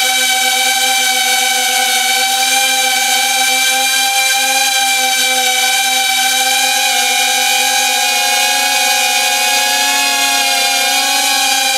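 FPV quadcopter's motors and propellers running in flight, a steady buzzing whine whose pitch wavers slightly in the second half, picked up close by the camera's built-in microphone on the drone.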